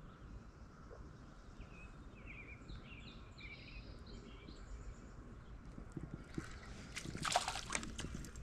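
Birds chirping briefly in the background, then splashing near the end, loudest a little after seven seconds, as a small hooked yellow perch is pulled from the water.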